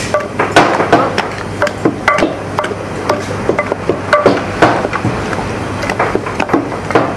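Wooden pestles pounding: one mashing flaked fish in a large stainless steel bowl, the other working in a clay mortar. An uneven run of overlapping knocks several times a second, a few of them louder than the rest.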